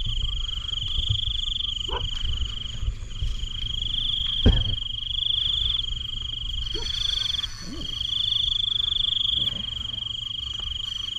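Night chorus of frogs and insects: a continuous, rapidly pulsing high trill that breaks off briefly now and then, over a low rumble, with one short knock about halfway through.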